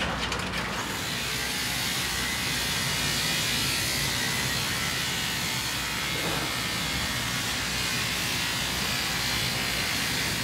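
Steady hissing rush of demolition-site machinery, with a low engine drone beneath it.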